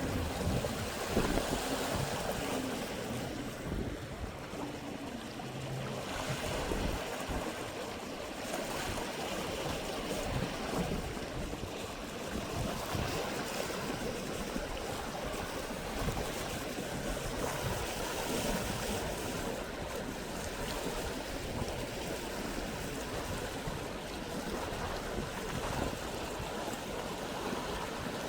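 Sea waves washing steadily against the shore, with wind rumbling on the microphone.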